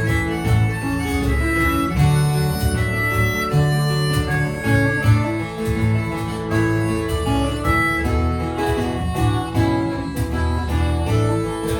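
Live acoustic folk band playing an instrumental break: acoustic guitar accompaniment under a held, sustained lead melody line.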